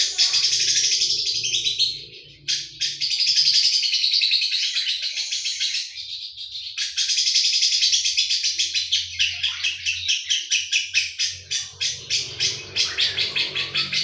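Lovebird singing a long, rapid, high-pitched chattering trill in the 'mesin jahit' (sewing machine) style, broken by brief pauses and ending in a fast run of sharp chirps.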